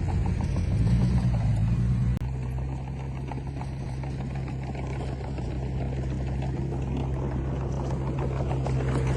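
Diesel engine of heavy earthmoving machinery running, its pitch wavering for the first two seconds, then dropping abruptly in level with a click about two seconds in and running evenly after that.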